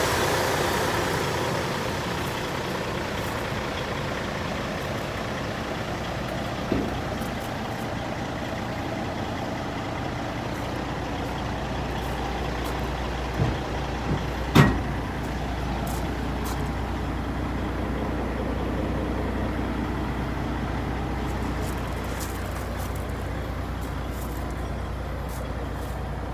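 Kenworth dump truck's diesel engine idling with a steady low drone. A hiss fades away over the first couple of seconds, and a few sharp clicks come through, the loudest about halfway.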